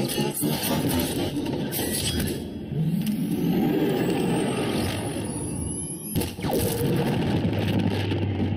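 Action-film battle sound effects: a truck skids, and metal clatters and scrapes as a giant robot leaps and transforms. Rising whines sound in the middle, a sharp crash hits about six seconds in, and a low rumble builds near the end.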